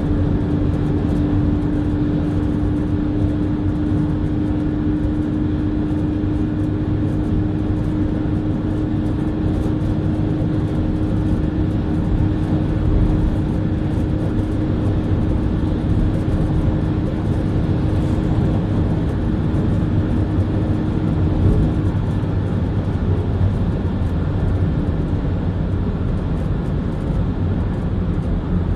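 Car cabin noise while cruising at motorway speed: a steady rush of tyre, wind and engine noise, with a steady hum that drops away about three-quarters of the way through.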